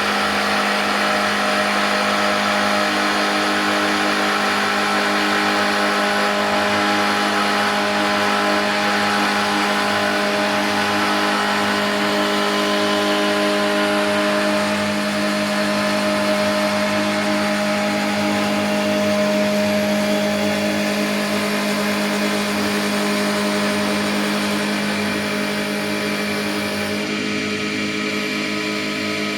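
Mini wood lathe with a 3.7 kW frequency-drive motor running steadily: a constant hum with higher whines over a hiss, a little quieter in the last few seconds.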